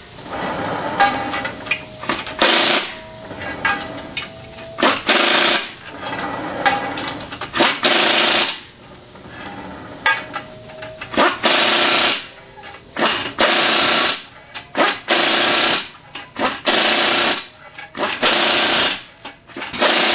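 Pneumatic wrench running down the nuts on a multi-piece wheel's assembly bolts, in a series of short rattling bursts one nut after another, about a dozen in all, coming faster in the second half.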